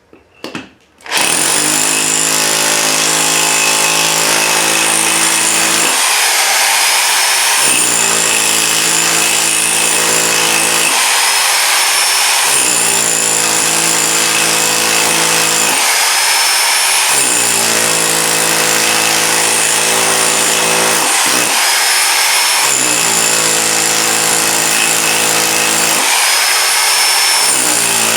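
Bauer 10.5-amp SDS Max rotary hammer with a 1-inch chisel bit, hammering into a concrete foundation. It starts about a second in and runs loud without stopping. The buzzing hammer blows break off briefly about five times while the motor keeps running.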